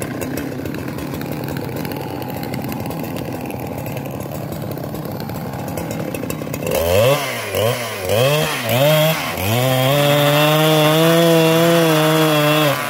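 Husqvarna 395XP two-stroke chainsaw idling, then blipped several times in quick rises and falls about seven seconds in, then held at high revs for about three seconds before dropping back to idle near the end.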